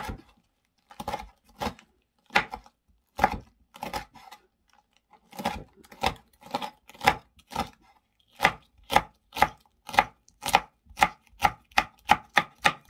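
Chef's knife chopping green chili peppers on a wooden cutting board: single knocks of the blade on the board, slow and uneven at first, then a steady run of about two to three chops a second from about two-thirds in.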